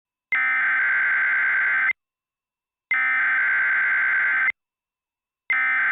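Emergency Alert System SAME header tones: bursts of digital data tones, each about a second and a half long, with about a second of silence between them. The third burst begins near the end. They open a new alert, a radiological hazard warning.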